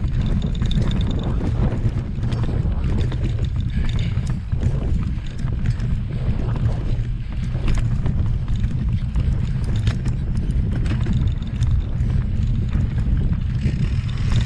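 Wind buffeting the microphone of a riding mountain bike, with a steady heavy rumble of tyres and frame on a rough trail and scattered clicks and knocks as the bike rattles over bumps.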